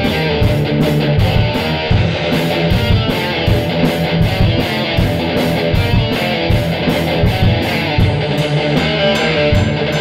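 Heavy metal song played by a band of two electric guitars and drums, with the cymbals struck in a steady, even beat.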